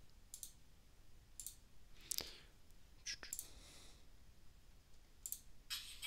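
A handful of faint, scattered computer mouse clicks. Just before the end, audio from the FM broadcast station the software-defined radio is tuned to starts playing.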